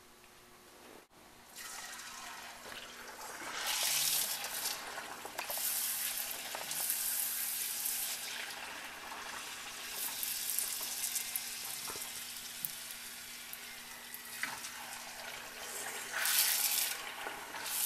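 Small semolina puris deep-frying in a pan of hot oil: a steady sizzle that swells and eases as puris go in and are pressed under the slotted spoon to puff. It starts about a second and a half in, after near quiet.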